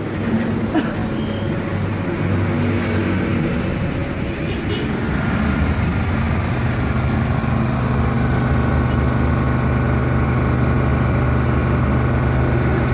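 Honda EP1000 portable generator's small petrol engine running steadily, its note becoming steadier and firmer about halfway through.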